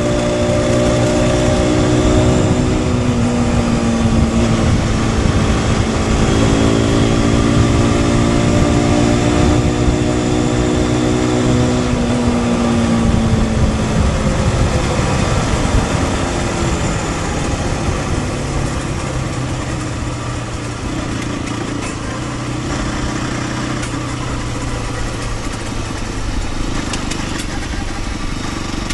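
Aprilia RS 125's single-cylinder four-stroke engine under way, with wind and road noise. The engine note dips, climbs again and falls away over the first sixteen seconds or so, then settles to a lower, steadier note.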